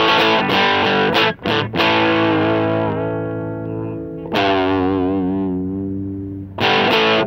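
Distorted electric guitar played through a small amplifier: a few short, choppy chord stabs, then two held chords left ringing and fading, the second wavering in pitch, and a hard new chord struck near the end.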